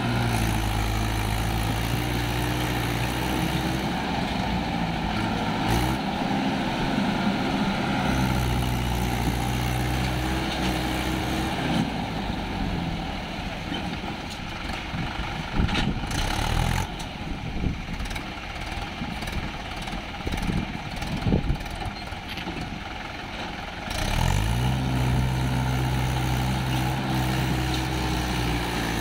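Swaraj 843 XM tractor's three-cylinder diesel engine revving hard under load as it drags a loaded sand trolley through deep mud, its pitch rising and falling. The engine eases off for a stretch in the middle, with a few knocks, then revs up strongly again near the end.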